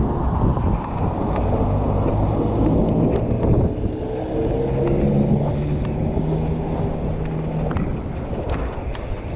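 Wind rumbling on the microphone over road traffic. A passing vehicle's engine tone rises about three seconds in and holds steady until about eight seconds.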